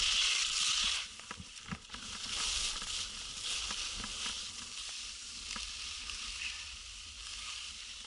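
Skis hissing and scraping over packed snow during a downhill run, loudest in the first second, with a faint low rumble underneath and a few light clicks.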